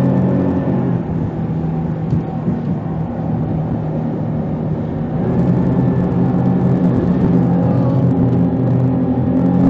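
Rigid inflatable boat's engine running under way, with wind noise on the phone's microphone. The engine eases off about a second in and picks up again a little after halfway.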